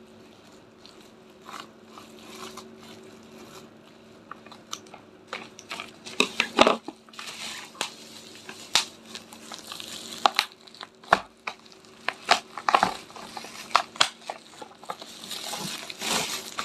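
Sealed plastic packaging being torn open and crinkled by hand: irregular crackles and sharp clicks, sparse at first and busier from about six seconds in.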